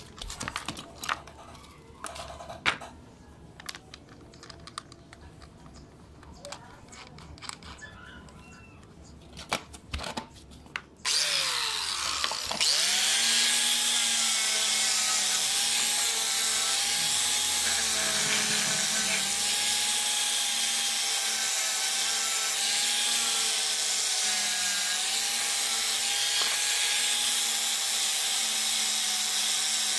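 Bosch angle grinder with a buffing wheel switched on about a third of the way in, spinning up and then running steadily as it polishes a rusty scissor blade. Before it starts there are a few light clicks and knocks of handling.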